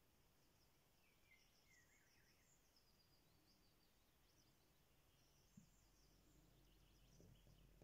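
Near silence: faint high chirping of small birds, with one soft tap a little past halfway.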